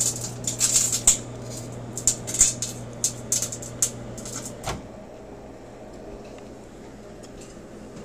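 Electrical arcing on a CD's metal layer inside a running microwave oven: rapid crackling and snapping sparks over the oven's steady hum. The sparking stops with a knock just under five seconds in, leaving a weaker hum.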